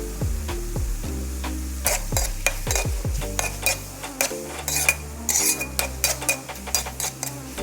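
A metal utensil stirring and scraping food in a cooking pan, with a run of irregular clinks and scrapes from about two seconds in.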